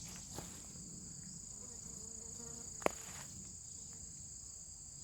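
Steady, high-pitched insect chorus, with one sharp click about three seconds in.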